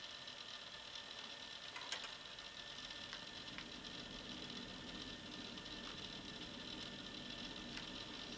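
Faint steady hiss with a few light clicks, one plainer about two seconds in; a faint low hum comes in about halfway through.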